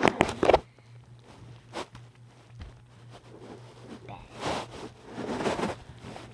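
Rustling, scraping and knocks from a phone being handled and moved about, loudest in the first half-second, with two more bursts of rustling about four and five seconds in. A faint steady low hum runs underneath.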